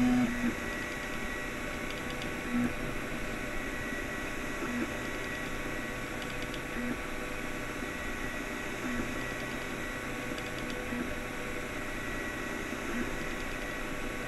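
Anet A8 3D printer running a print: a steady hum of its fans and electronics, with short tones from the stepper motors about every two seconds as the print head traces the outline. The loudest tone comes right at the start.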